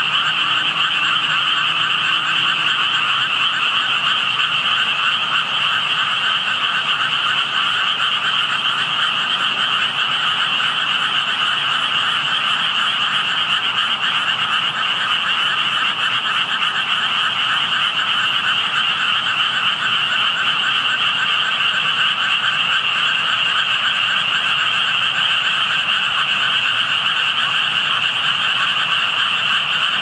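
A chorus of many frogs calling at once from a pond: a dense, unbroken, fairly loud wall of calls with a high, steady pitch.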